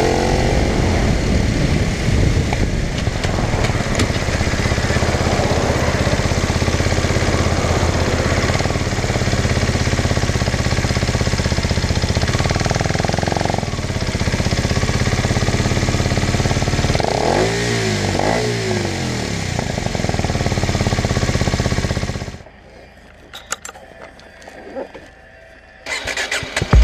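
Kawasaki Ninja 125's single-cylinder four-stroke engine running under way, with road and wind noise. About two-thirds through, its pitch swings up and down a couple of times. Near the end the sound drops to a much quieter stretch with a few clicks, then comes back loud.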